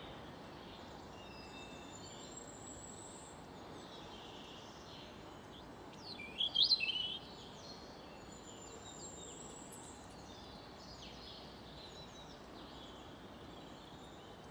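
Wild birds chirping and singing over a quiet, steady outdoor background hiss, with one louder burst of quick, sweeping high notes about six seconds in.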